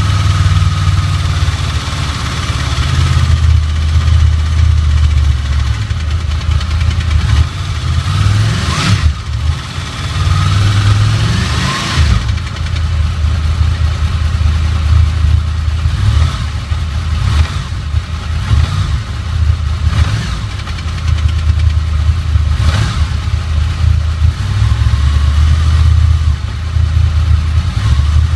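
Honda VFR800's V4 engine running at idle, revved briefly twice about a third of the way in.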